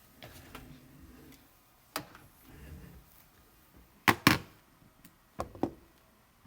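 Keys being pressed to work out a sum: a handful of short sharp clicks, the loudest a quick pair about four seconds in, with faint low rustling between them.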